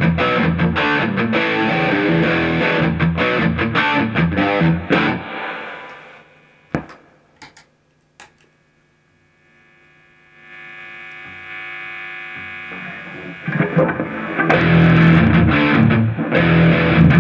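Dean Vendetta electric guitar played through distortion pedals and an amp, heavy riffing that stops about five seconds in. Two clicks follow as a pedal on the pedalboard is switched. A quieter chord then rings out, and the loud distorted riffing comes back about fourteen seconds in.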